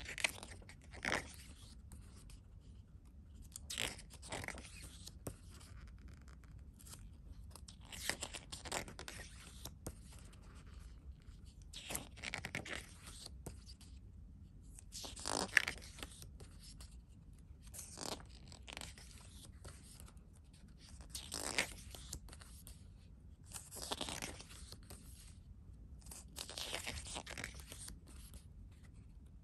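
Paper pages of a CD booklet being turned by hand, each turn a short rustle, about every three to four seconds.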